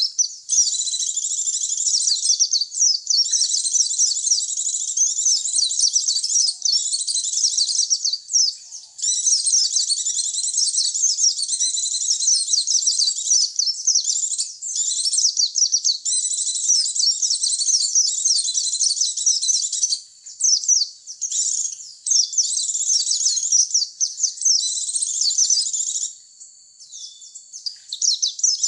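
White-eye (pleci) song on a lure recording: long runs of rapid, high twittering, broken by a few short pauses.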